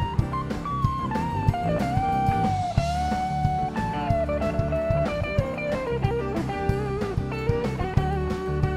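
Live blues band playing an instrumental break: a lead electric guitar solos with string bends and long held notes over bass guitar and a drum kit.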